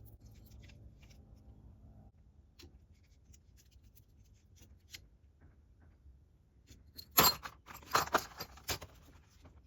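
Metal parts and tools clinking and rattling as they are handled, in a short cluster of sharp clicks about seven seconds in, after a quiet stretch. Faint background music fades out at the start.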